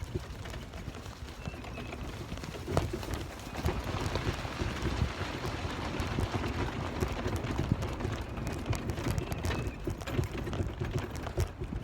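Footsteps walking along an outdoor trail, a run of irregular crunching steps, over a heavy low rumble of wind or handling noise on the microphone.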